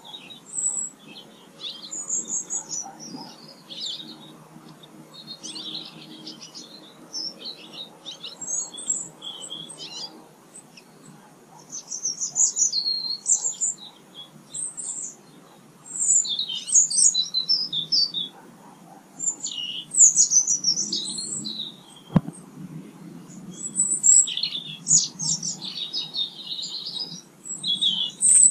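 Small songbirds chirping and twittering in quick, high-pitched bursts, several calls overlapping in irregular clusters. A single sharp click sounds about two-thirds of the way through.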